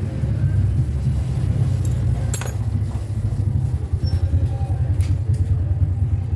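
An engine idling with a steady, rapid low pulse, with a sharp click a little over two seconds in and another near five seconds.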